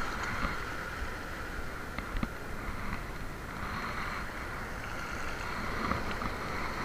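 Surf washing in over a rocky shore, swelling and easing, with wind rumbling on the microphone.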